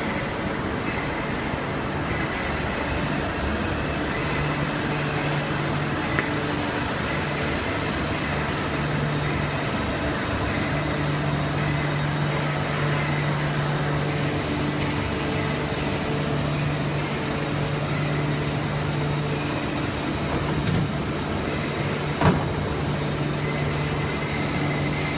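Steady industrial machinery hum in a machine shop, with a low drone that cuts out and comes back several times. There are a few sharp knocks, the loudest about 22 seconds in.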